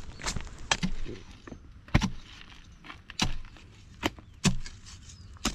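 A hand tool, such as a hoe or pick, striking hard ground while digging a hole: about eight sharp blows at an uneven pace.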